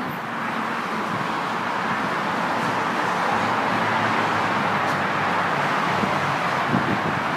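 Steady rush of road traffic from passing cars, slowly growing a little louder.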